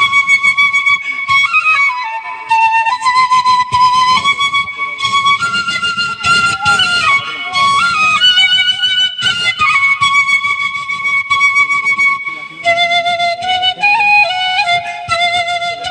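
Background music: a flute-like melody of long held notes that step between pitches, with a few short slides.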